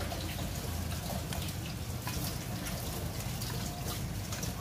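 Wooden chopsticks tossing shredded pork skin and lean pork in a ceramic bowl: soft rustling with many small irregular clicks, over a steady low hum.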